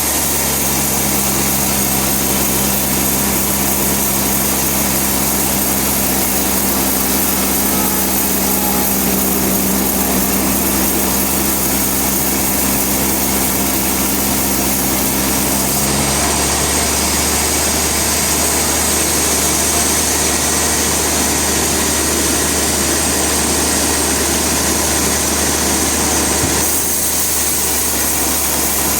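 Bandsaw sawmill engine running steadily. About halfway through, the sound changes abruptly to a rougher, noisier texture, and it switches back near the end.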